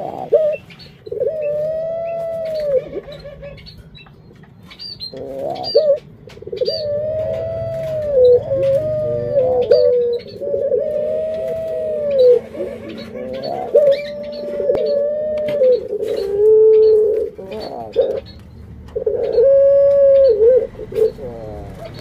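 Barbary doves (ringneck doves) cooing over and over: long rolling coos of one to two seconds each, one following another with short gaps.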